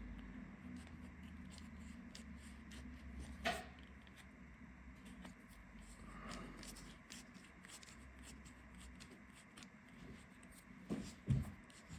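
Faint, irregular scratching and scraping of a hand tool against a smartphone's frame as leftover back-glass adhesive is scraped off. There is a sharper click about three and a half seconds in and a couple of knocks near the end.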